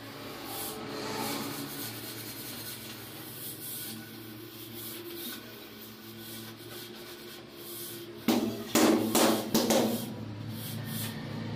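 Hands pressing and sliding a large ceramic floor tile over its cement-and-sand mortar bed: a faint rubbing and scraping, then a few louder knocks near the end as the tile is bedded down.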